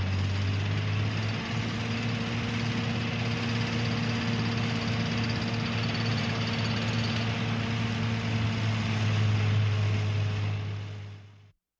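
Construction-site ambience carried by a heavy machine's engine running steadily with a strong low hum over a wide noisy rumble; it fades out near the end.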